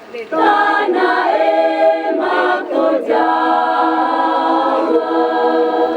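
Choir singing in harmony: a short breath at the start, then the voices come back in and settle into long held chords.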